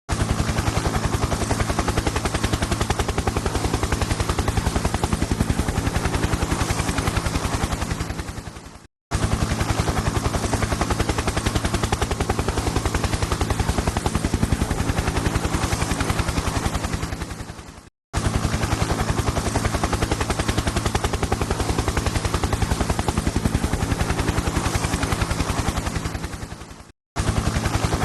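Helicopter rotor chopping in fast, even beats over a steady engine hum. The same stretch of about nine seconds fades out, breaks off for a moment and starts again, three times.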